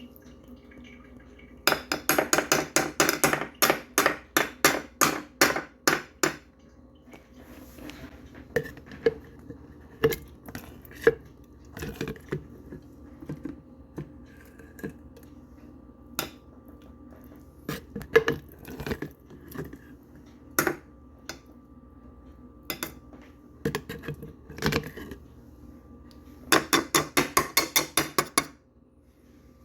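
Hard objects striking one another: a fast run of sharp tapping strikes, about five a second, then scattered single clinks and knocks, then another fast run of taps near the end.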